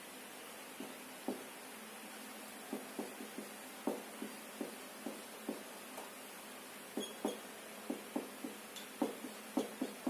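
Whiteboard marker tapping and scraping on a whiteboard as equations are written: irregular short taps, a few per second, over a faint steady hiss.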